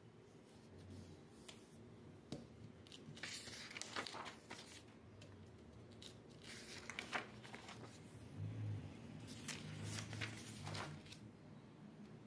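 Paper pages of a spiral-bound book being handled and turned, faint rustling in three short bouts.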